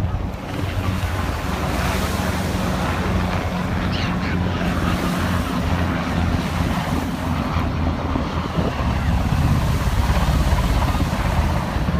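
Helicopters flying overhead, a steady low rotor and engine drone that grows slightly louder, mixed with wind on the microphone and surf.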